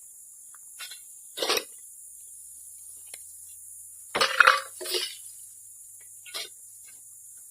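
Burnt scrap metal, nails and bits of aluminum, clinking and clattering as it is tipped onto a magnet screen. It comes in several short spills, the loudest about four seconds in. Crickets chirr steadily behind.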